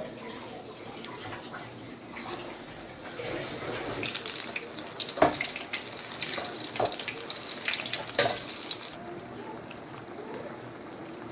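Hot oil sizzling and crackling in a kadai as fried chilli bhajjis are lifted out, getting busier after a few seconds and dying down near the end. Three sharp utensil knocks against the pan come in the middle, the first the loudest.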